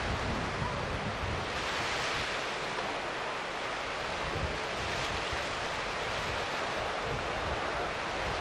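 Sea waves washing, heard as an even hiss that swells and eases every few seconds, with wind rumbling on the microphone.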